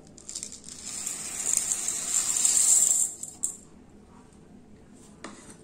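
Dry split moong dal poured from a plastic measuring cup into a steel bowl of rice, the grains pattering in a dense rattle that builds and stops about three seconds in. A couple of small knocks follow.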